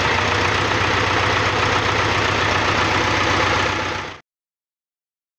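Air-cooled Deutz diesel engine idling steadily. The sound cuts off suddenly about four seconds in.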